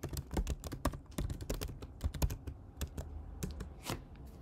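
Typing on a computer keyboard: a quick run of key clicks that thins out after about three seconds, ending with a last key press, the Enter key, near the end.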